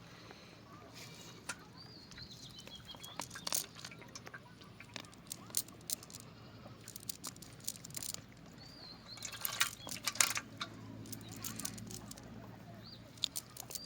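Outdoor sounds: small birds chirping, with many scattered sharp clicks and knocks, thickest about nine to eleven seconds in.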